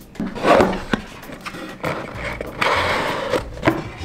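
A cardboard shipping box being opened by hand: the cardboard scrapes and rustles in two stretches, with a few light knocks as the box is handled.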